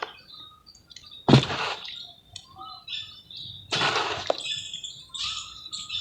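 Wet, pasty red mud crumbling: two crunchy, gritty crumbles, about a second and a half and then nearly four seconds in. Birds chirp faintly in the background.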